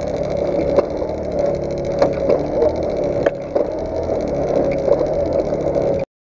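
50cc moped engine idling steadily, with a few sharp knocks over it; the sound cuts off suddenly near the end.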